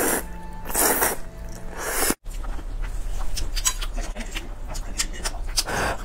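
Spicy instant noodles slurped in three loud bursts about a second apart, over faint background music. After a sudden cut about two seconds in come wet chewing clicks and smacks, and another slurp near the end.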